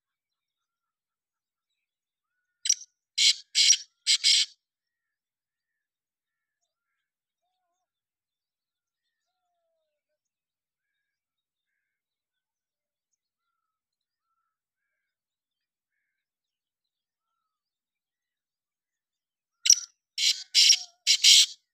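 Black francolin calling: two bouts of four short, harsh notes in quick succession, one a few seconds in and one near the end, with near silence between them.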